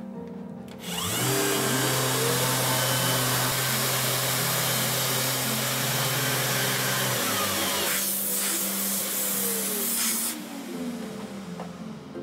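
Festool sander with a 1000-grain foam abrasive pad and dust extraction, polishing wood samples. It switches on about a second in, rising in pitch as it spins up, runs steadily, then switches off near the end and falls in pitch as it winds down.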